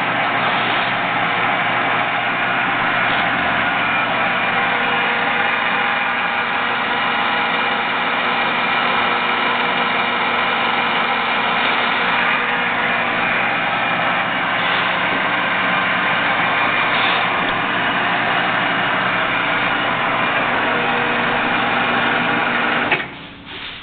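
ENCO 13" x 40" metal lathe running under power with a steady mechanical hum and several held tones. Near the end it cuts off suddenly as the foot brake is pressed and the spindle is stopped.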